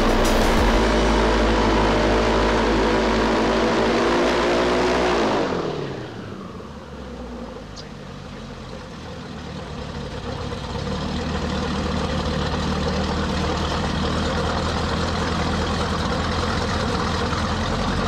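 Airboat engine and propeller running hard, then throttled back about five seconds in, the pitch falling away. After a few seconds of lower sound the engine picks up again and runs steadily at lower revs.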